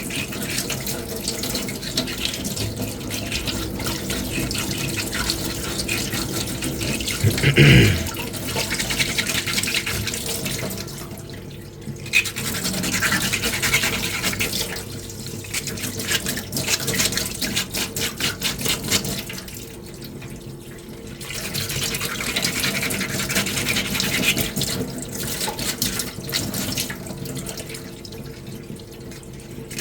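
Sandpaper rubbing by hand on a small putty-coated armour piece: quick back-and-forth scrubbing strokes with a few short pauses. A brief, louder rising squeak comes about seven seconds in.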